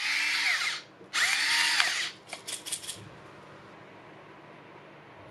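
Small electric pepper grinder running in two bursts of about a second each, grinding black pepper, its motor pitch dipping and recovering under the load. A few quick clicks follow.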